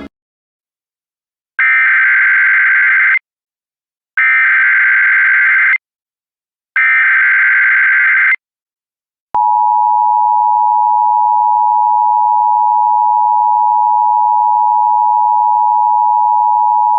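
Emergency Alert System opening: three buzzy bursts of SAME header data, each about a second and a half long with short gaps between, then the steady two-tone EAS attention signal, which starts about nine seconds in. The sequence opens a child abduction emergency (AMBER Alert) broadcast.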